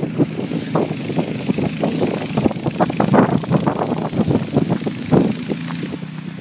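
Honda HS80 snowblower engine running steadily under load while the machine chews through hard-packed plowed snow and throws it out the chute, with rapid irregular surges of noise as chunks of snow go through.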